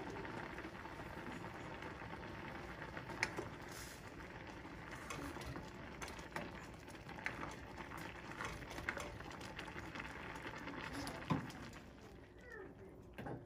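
A pot of instant noodles at a rolling boil, a steady bubbling, while a black spoon stirs them and knocks against the stainless steel pot a few times, the sharpest knocks about three seconds in and near the end.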